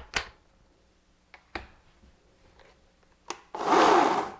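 A few sharp clicks from handling the chainsaw's parts, then a loud rasping burst of just under a second near the end.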